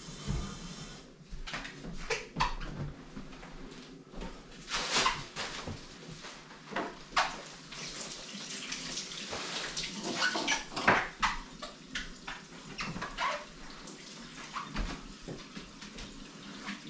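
Water running and splashing at a kitchen sink during cleaning, with scattered knocks and clicks of things being handled.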